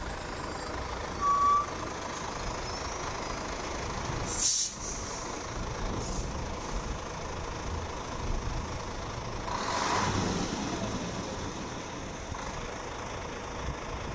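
A diesel truck engine running close by. There is one short high beep a little over a second in and a short hiss of air about four and a half seconds in, and the engine noise swells briefly around ten seconds in.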